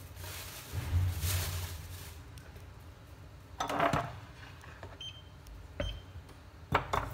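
Kitchen handling sounds at a stovetop pot: a brief clatter about halfway through, two short electronic beeps, and a couple of sharp clicks near the end.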